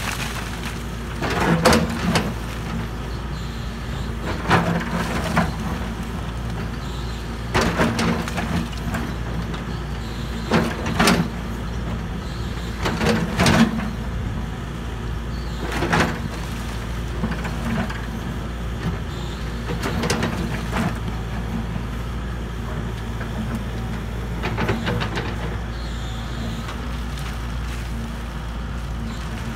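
SANY SY135C hydraulic excavator's diesel engine running steadily while it digs into shale. A louder burst of engine effort and rock scraping and clattering comes roughly every two to three seconds as the bucket works.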